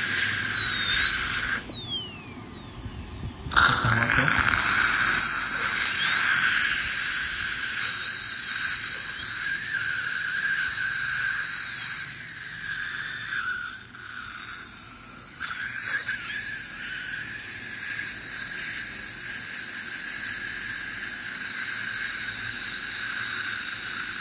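High-speed air-turbine dental handpiece running with a high whine and hiss while cutting a front tooth for a composite filling. About two seconds in it winds down with a falling whine and goes quiet for a moment, then starts up again abruptly and keeps running, easing off briefly about two-thirds of the way through.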